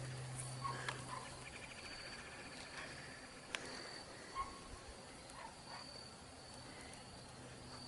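Insects around an opened beehive: a low buzzing hum that fades about a second in, and a high insect chirp pulsing on and off. A couple of sharp knocks from the wooden hive parts being handled.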